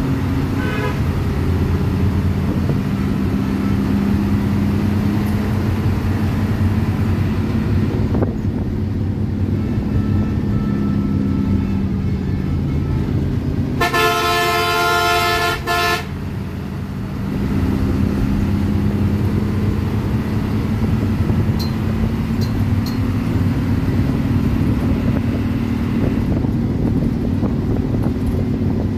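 Diesel engine of a Hino AK bus running under way, heard from the driver's cab. Its note drops for a few seconds as the bus slows, then climbs again. About halfway through, the horn gives one loud blast lasting about two seconds.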